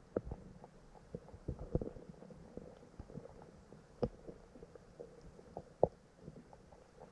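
Stream water heard muffled: faint, irregular soft knocks and gurgles over a low wash, with two sharper knocks about four and six seconds in.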